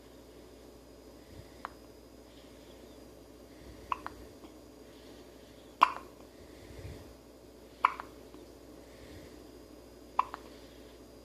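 A baby hiccuping: five short, sharp hiccups about two seconds apart, the one near the middle the loudest.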